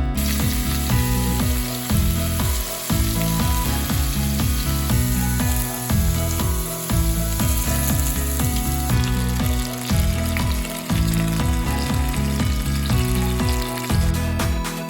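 Food sizzling as it fries in a pan, a steady high hiss, over background music with a repeating bass line.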